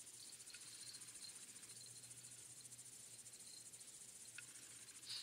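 Near silence: a faint, steady, high-pitched rapid trill throughout, with a few faint ticks from the hands working the fishing line and bait.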